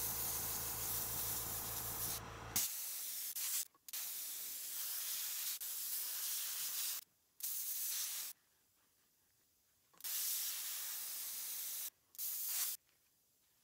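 Airbrush hissing in bursts of one to three seconds as the trigger is pressed and released, spraying black paint, with short near-silent gaps between strokes. A low steady hum underneath cuts off about two and a half seconds in, and the last second is quiet.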